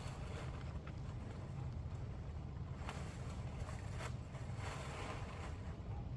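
Steady wind rumble on the microphone, with a few faint clicks and a brief rustle about three to five seconds in.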